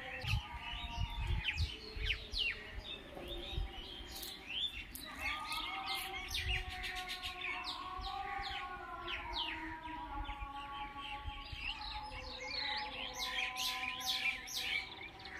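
Many small birds chirping busily in a leafy tree, a dense overlapping chorus of short, quick, downward-sweeping chirps, with steady lower tones underneath that shift in pitch now and then.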